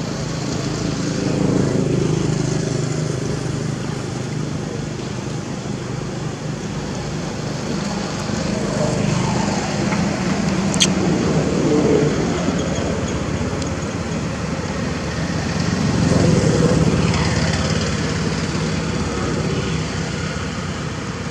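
Motor vehicle engines running with road traffic passing, a steady low hum that swells louder a few times; a single sharp click about eleven seconds in.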